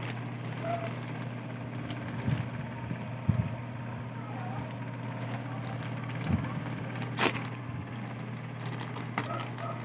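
Plastic courier pouch being handled and picked at by fingers, rustling and crinkling with a few sharp crackles, the loudest about three and seven seconds in, over a steady low hum.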